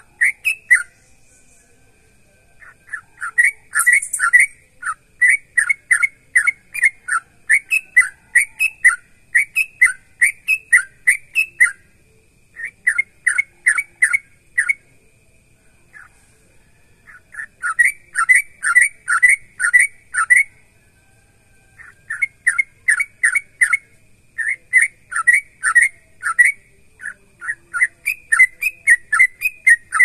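Yellow-vented bulbul (trucukan) singing vigorously: runs of quick, bubbling whistled notes, about three to four a second, in phrases of a few seconds broken by short pauses.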